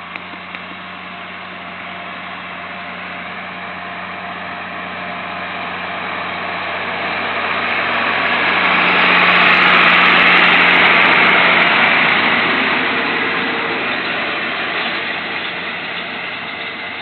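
Tractor pulling a round baler along a hay windrow, engine and baler running steadily; it comes closer, is loudest about ten seconds in, then draws away.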